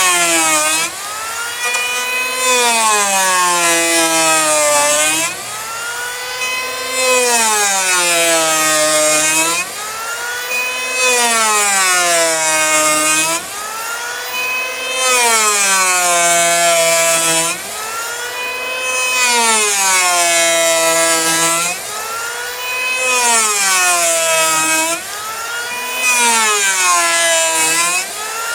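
Portable electric power planer cutting a hickory slab in repeated passes, about one every two to three seconds: the motor's whine drops in pitch under load as the blades bite, with a hissing cut, then rises again as each stroke ends.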